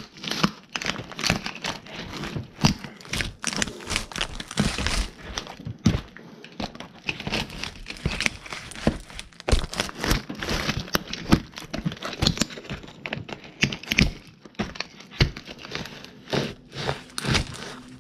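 Toy cars being crushed under stomping boots: a dense, irregular run of cracking, crunching and crinkling snaps that goes on throughout.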